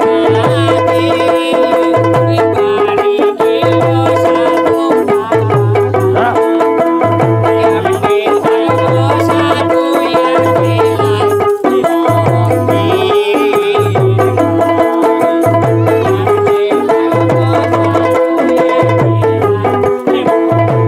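Bhawaiya folk music: a plucked string instrument repeats a melody over a steady low drum beat.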